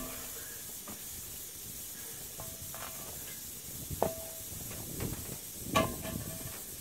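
A steady hiss with a couple of light metallic clinks that ring briefly, about four seconds in and again near six seconds, as steel brake parts and tools are handled during a trailer brake job.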